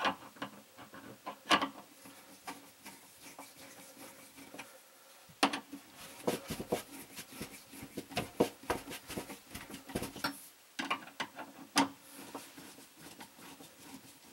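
Screwdriver turning the clamp screws of a saddle valve onto a PEX water line: irregular small clicks and scrapes of the bit in the screw heads, thickest in a run through the middle. The screws are being drawn down evenly as the clamp starts to snug up on the pipe.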